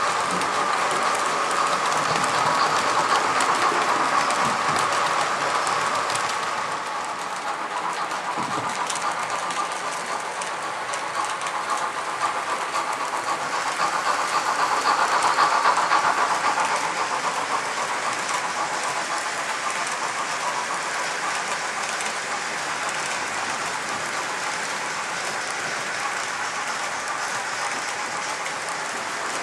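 Model steam train running along the layout track: a steady rattle of small metal wheels on rails with fine clicking over the rail joints. It swells briefly twice, the second time about halfway through, as the heavy coaches pass close by.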